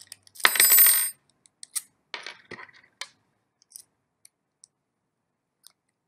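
A small metal screw dropping onto a wooden tabletop: a sharp ringing clatter about half a second in, then a few smaller bounces and rattles over the next two seconds or so, followed by faint ticks.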